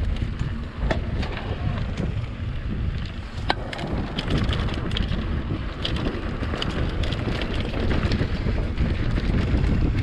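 Wind buffeting the microphone, a steady low rumble, with scattered clicks and knocks from a mountain bike rolling over a dirt trail.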